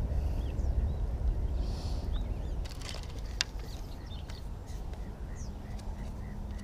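Small birds chirping over wind rumble on the microphone. The rumble eases a little before the middle. A single sharp click comes a little past the middle.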